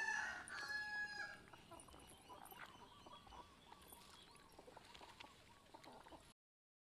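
A rooster crowing, the call ending within the first half-second, then a shorter high call about a second in. After that, faint clucks and small clicks.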